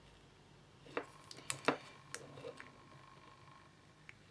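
Multimeter test probes tapping and scraping on the components of a small circuit board, a handful of sharp clicks from about one to two and a half seconds in. A faint steady high tone sounds alongside from about a second in.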